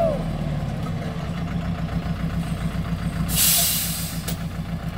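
Diesel dump truck engine idling with a steady, pulsing drone. About three and a half seconds in, a short sharp hiss of air breaks over it, the air brakes venting.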